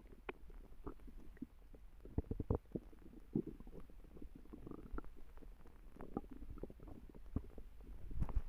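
A person's stomach growling and gurgling, a steady run of irregular bubbling pops and squelches, with louder pops about two to three seconds in and again near the end.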